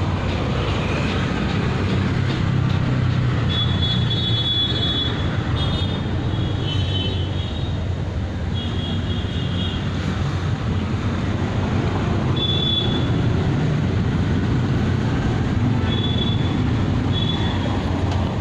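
Loud, steady low rumble of heavy vehicle noise, with short high-pitched squeals several times.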